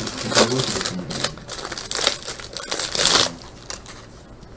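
Card pack wrapper crinkling and tearing as it is torn open by hand, a run of sharp crackles that stops a little after three seconds in.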